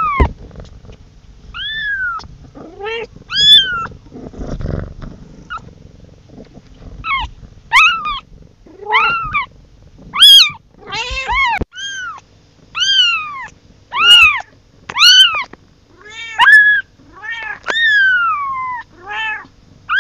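Very young kitten meowing over and over, thin high-pitched cries that each rise and fall in pitch, calling for its mother. The cries come sparsely at first, then about once a second in the second half.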